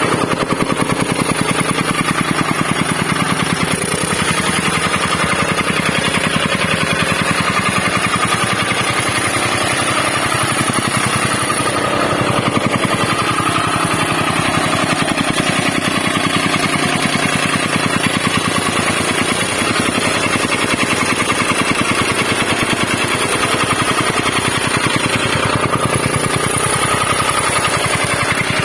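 Tamping rammer (jumping-jack soil compactor) running: its engine drives a rapid, steady hammering as the foot pounds the soil.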